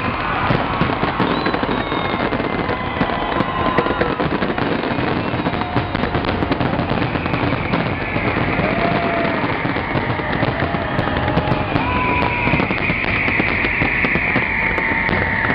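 Aerial fireworks display: a continuous barrage of shell bursts and dense crackling, with a high crackling hiss swelling in the second half.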